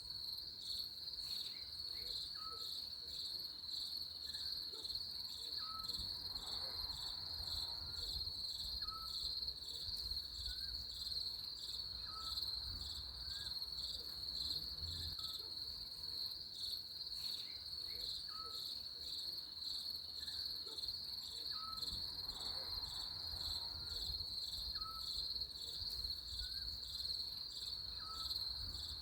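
Insects trilling in a steady, high-pitched, rapidly pulsing chorus, with faint short lower chirps repeating about once a second.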